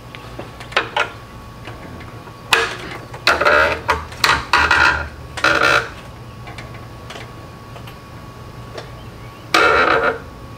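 Hand tools and the belt drive of a Camaro's engine being worked as the belt tensioner is levered back with a breaker bar to release the belt. There are a couple of light clicks, then a cluster of short, sharp mechanical clatters and rubs from about two and a half to six seconds in, and one more near the end.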